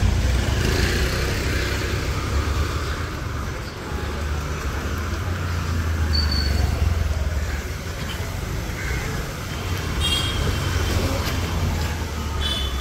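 Motorbike and scooter engines passing close by on a street, over a steady low traffic rumble that swells in the middle. A few short high beeps sound near the end.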